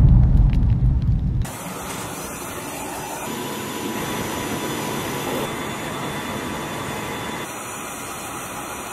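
A large explosion's low rumble dies away and cuts off suddenly about a second and a half in. A steady, even mechanical running noise with a faint hum follows.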